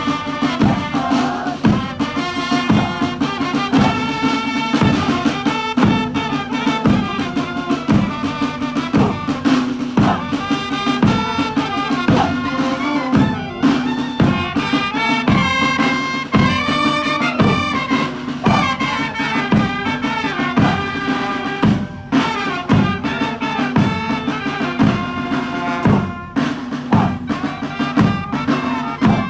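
Music with a steady drum beat and a brass-like melody.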